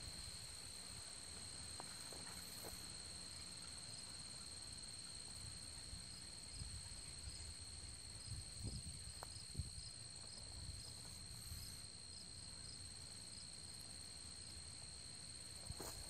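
Faint soft scraping of a fine-bristle concrete finishing broom being drawn across a freshly floated concrete slab, under a steady high-pitched insect drone.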